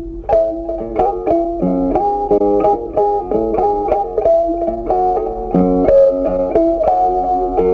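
Background instrumental music: a plucked guitar playing a melody and chords in a quick, even rhythm.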